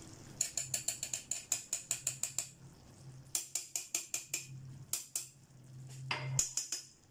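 Metal teaspoon clinking and scraping against a steel pan while stirring red food colour into boiling sago pearls, in quick runs of ticks about five a second with short pauses and a louder scrape about six seconds in.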